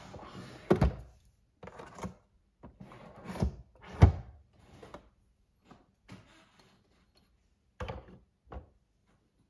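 Nespresso capsule machine's top lever being worked by hand: a run of plastic clicks and clunks, the loudest clunk about four seconds in as the lever is pressed shut. Near the end a ceramic cup knocks twice as it is set on the drip tray.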